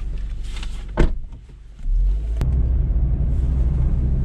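A car's rear door slams shut about a second in. After a brief lull, the car's low engine and road rumble picks up and runs steadily as it pulls away, with a small click along the way.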